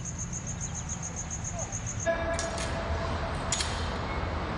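A cricket chirping in a fast, even, high-pitched pulse, cut off suddenly about two seconds in. After that, a low steady hum with a faint held tone, broken by two sharp clicks about a second apart.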